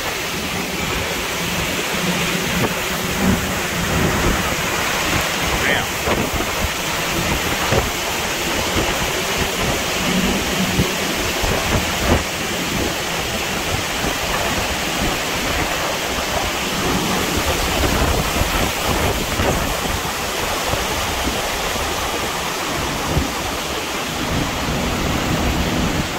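Hurricane eyewall wind roaring with driving rain, a loud, steady rush that surges unevenly in gusts.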